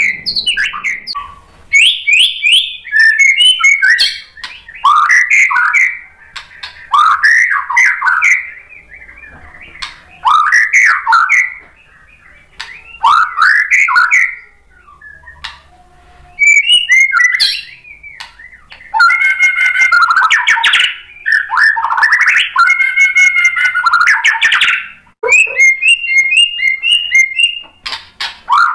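White-rumped shama singing: loud, varied whistled phrases of a second or two each, broken by short pauses. Some phrases are fast runs of repeated notes, about two-thirds of the way through and again near the end.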